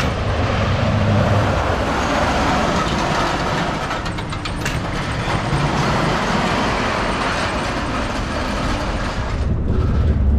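Schwarzkopf Wildcat roller coaster car rumbling along its steel track, a steady running noise with a short burst of clattering about four to five seconds in.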